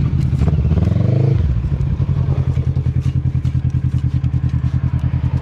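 Quad (ATV) engine idling with a steady pulsing note, revving up briefly about a second in and dropping back to idle.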